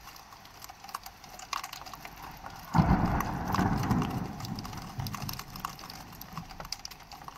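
Raindrops splattering on a window and its ledge: sharp, irregular ticks over a steady hiss of rain. About three seconds in, a sudden low rumble starts and dies away over the next few seconds.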